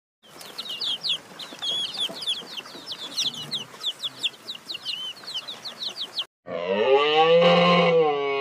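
Baby chicks peeping, a dense flurry of short high cheeps that stops abruptly about six seconds in. Then a cow moos once, a long, louder call that rises and falls in pitch.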